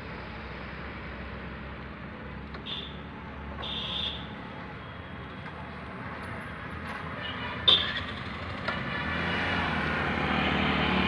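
A motorcycle engine approaching and growing louder over the last couple of seconds, over a steady low rumble of road traffic. A few short high beeps come early on and near eight seconds in, along with a sharp click that is the loudest moment.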